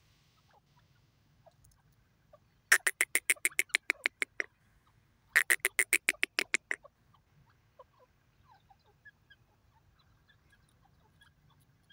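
Grey francolin calling: two runs of rapid, evenly repeated notes, about eight a second, each lasting under two seconds.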